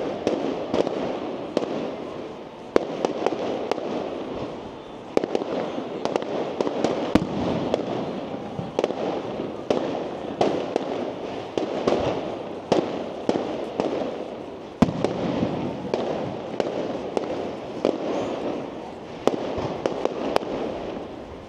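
Aerial fireworks display going off in quick, irregular succession: many sharp bangs over a continuous crackle.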